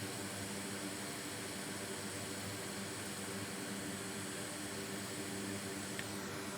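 Steady, even hiss like a running fan, with a low hum underneath that does not change.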